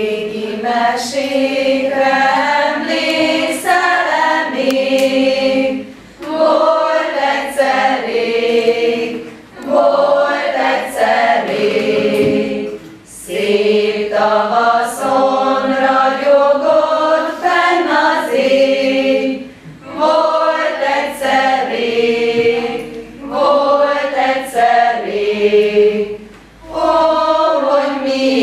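A group of voices singing unaccompanied, in phrases of a few seconds with short breaks for breath between them.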